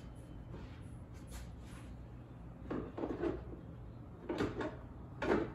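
Three short bursts of clunks and scrapes from things being picked up and set down on a wooden workbench, coming in the second half.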